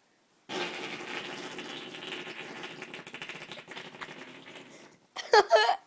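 A long, noisy fart lasting about four and a half seconds, starting about half a second in.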